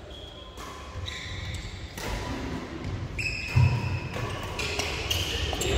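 Badminton doubles rally: rackets striking the shuttlecock with sharp hits and shoes squeaking on the synthetic court mat in short high squeals. The loudest hit comes a little past halfway.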